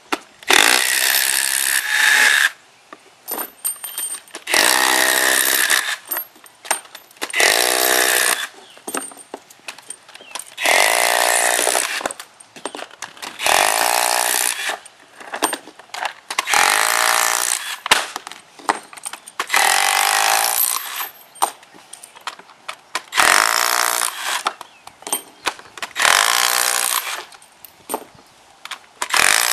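Cordless impact driver with a socket backing 3/8-inch Titen HD concrete screw anchors out of the ground one after another: about ten bursts of rattling hammering with a motor whine, each a second or two long, with short pauses between.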